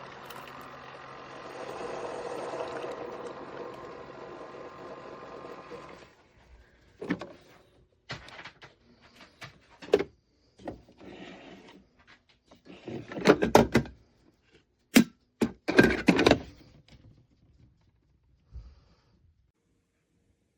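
Keurig K-Duo coffee maker's brew stream running, then cutting off about six seconds in. A scattered series of plastic clicks, knocks and clunks follows, the loudest a few seconds later.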